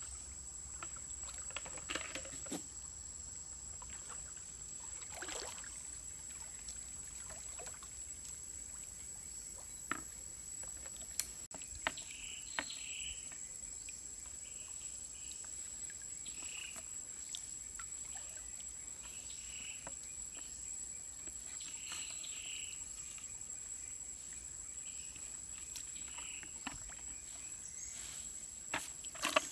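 Faint riverside ambience: a steady high-pitched insect drone, with a few sharp clicks and small splashes from a collapsible umbrella fish-trap net being handled in shallow water. From about twelve seconds in, short chirping calls come now and then.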